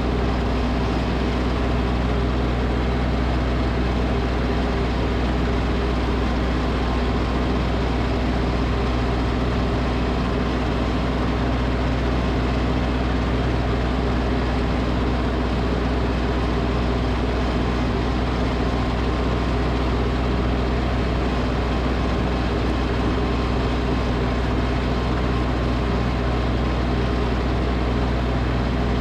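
Tractor engine running steadily at a constant speed, driving a snowblower.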